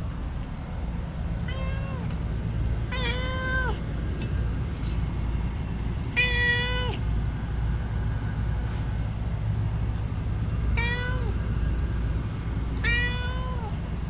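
A domestic cat meowing five times, each meow a drawn-out call lasting under a second, the loudest about six seconds in, over a low steady rumble.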